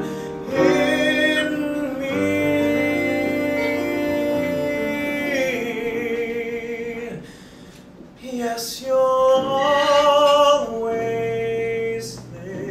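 A man singing a ballad with piano accompaniment, holding long notes with vibrato. Just past the middle the music drops back softly, then he swells into a loud sustained high note.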